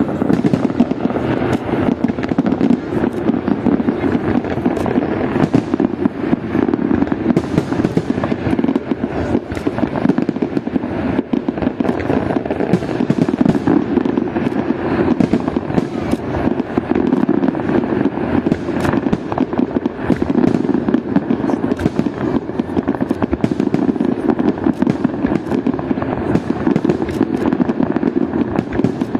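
Fireworks display: a dense, unbroken barrage of bangs and crackling as many shells burst close together.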